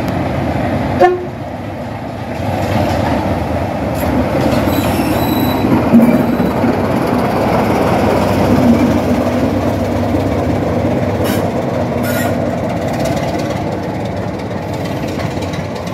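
Class 26 diesel locomotive's Sulzer six-cylinder engine running as the loco moves past close by, the engine note swelling as it passes and easing off as it draws away. A short sharp tone sounds about a second in.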